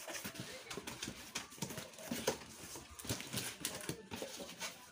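Cardboard box flaps and packing being pulled open and handled by hand: an irregular run of taps, scrapes and rustles.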